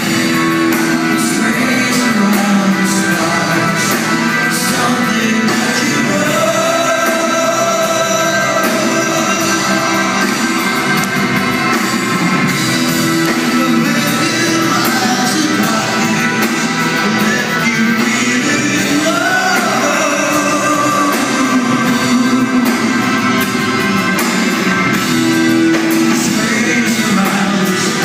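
Live rock band playing: a singer over electric guitar, keyboards and drums.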